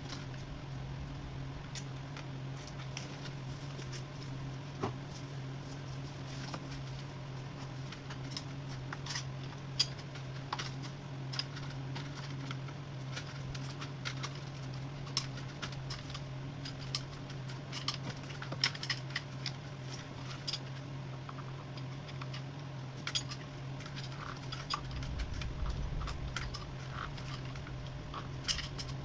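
Scattered light clicks and taps of small tools and parts being handled, over a steady low hum.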